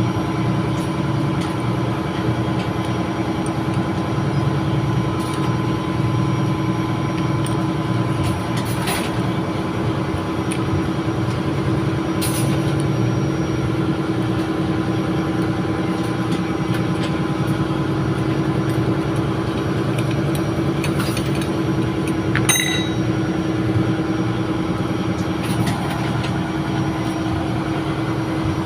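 Steady drone of running ship machinery: a low, even engine hum with a held tone. A few short clicks sound over it.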